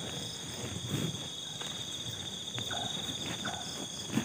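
Crickets chirping in a steady, continuous high trill, with a few soft rustles underneath.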